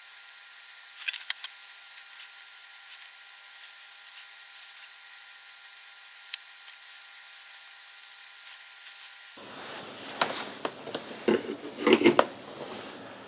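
Hands handling small parts and tools on a workbench. Faint clicks and a faint steady whine come first, then louder rubbing, rustling and sharp clicks in the last few seconds.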